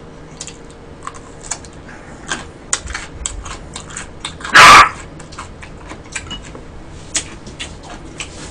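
A dog barks once, loudly and sharply, about four and a half seconds in, over soft clicks and smacks of eating and chopsticks close to the microphone.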